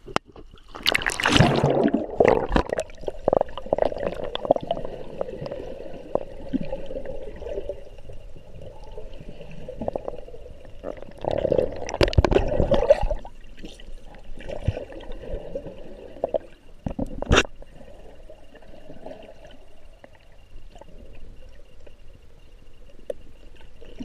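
Water gurgling and sloshing around a camera taken underwater as a snorkeler dives in the sea. There are louder surges about a second in and again around twelve seconds in, and a sharp click near seventeen seconds.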